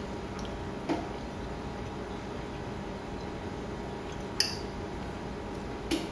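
A few short clicks of a metal fork against a small ceramic ramekin while a person eats from it, the sharpest one about four seconds in, over a steady low hum.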